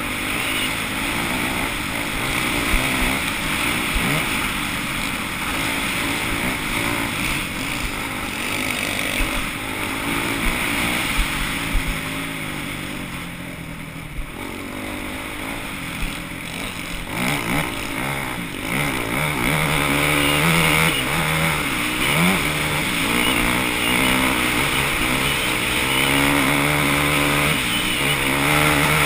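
Off-road motorcycle engines running at a motocross race, their pitch rising and falling with the throttle. The engines grow louder and more prominent about two-thirds of the way through.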